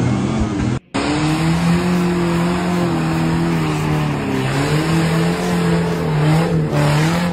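Engine of a small lifted 4x4 on oversized tyres running at steady high revs as it climbs over rough ground, its pitch wavering slightly. A brief dropout comes just under a second in.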